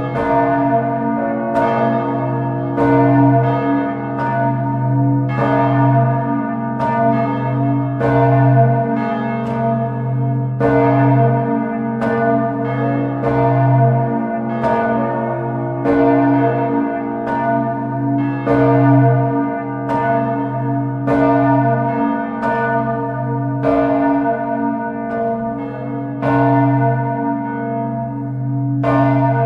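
Church bells swinging and ringing, a stroke about every second, the strokes overlapping over a deep sustained hum.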